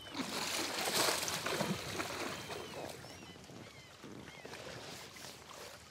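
Water splashing and sloshing as farmed rainbow trout thrash at the surface of a net pen, rising to feed thrown in. It is loudest in the first couple of seconds, then dies down.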